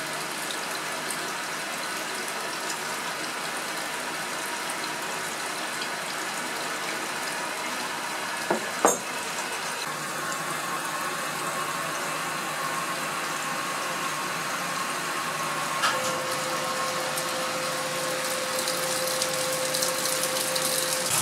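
Water-jet aspirator running off the tap: a steady rush of water as it pulls vacuum through a glass fritted filter funnel. It is working hard because the concentrated sulfuric acid slurry is so thick. A faint steady tone sets in around halfway and a lower one a few seconds later, with a brief knock just before halfway.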